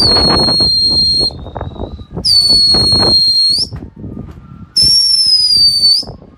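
Three long, high whistles, each held steady for a little over a second, with short gaps between them.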